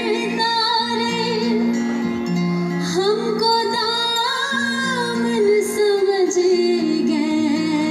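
A woman singing a Hindi film song live through a PA, holding long notes with vibrato, over sustained keyboard chords from the backing band.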